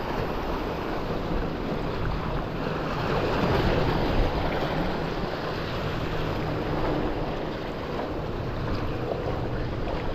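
Sea washing against shore rocks, with wind buffeting the microphone. A faint low steady hum sits underneath for most of it.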